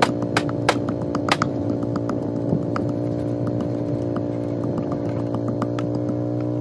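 A motor or engine running steadily at an even speed, with a few light clicks in the first second and a half.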